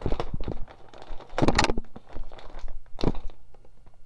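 Clear plastic parts bag being pulled open and crinkled by hand, a hard-to-open childproof packet, in a few sharp rustling bursts, the loudest about a second and a half in.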